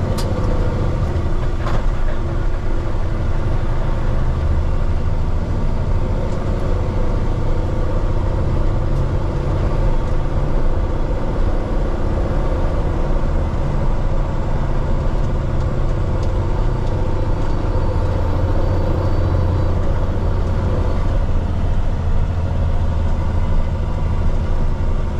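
Peterbilt 389X heavy rotator tow truck's diesel engine running steadily with road noise, heard inside the cab while it cruises with a heavy truck in tow.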